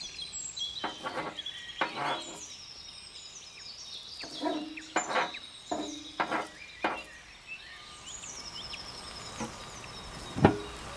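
Small birds chirping and singing, in short rising and falling notes, with a few short sharp taps in the middle.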